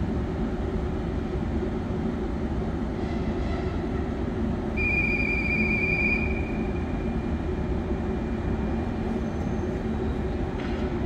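A double-deck electric train standing at the platform, humming with a steady low rumble. About five seconds in, a high steady tone sounds for just over a second, then fades away.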